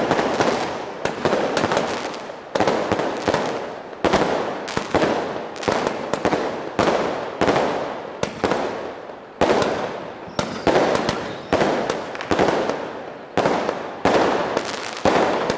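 Fireworks going off in quick succession: a steady run of sharp bangs, one or two a second, each trailing away before the next.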